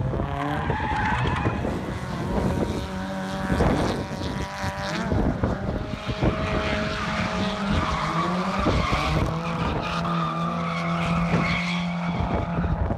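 Drift car engine revving hard, its pitch rising and falling as the throttle is worked, over the continuous noise of tyres skidding on asphalt as the car slides.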